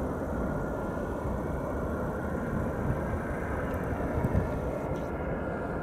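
Steady low rumble of a McDonnell Douglas MD-82's rear-mounted Pratt & Whitney JT8D turbofans at takeoff power as the airliner climbs away.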